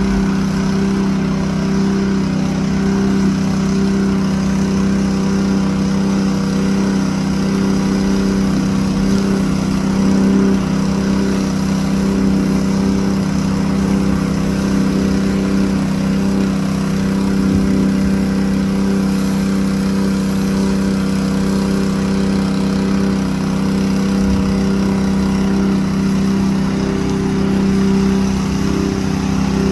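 Engine of a sealcoat spray rig running steadily at constant speed, driving the pump that feeds the spray hoses: an even, unchanging drone.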